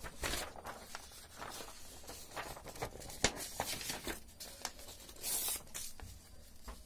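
Paper sheets rustling and sliding as a written page is lifted off a clipboard and a blank sheet is put in its place. There is a sharp click about three seconds in and a louder swish of paper about five seconds in.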